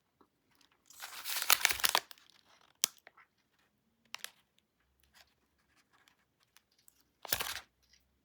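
Close-miked crisp crackling and crunching of a Nestlé Lion cereal bar: a dense crackly burst of about a second, a single sharp crack, then another short burst near the end.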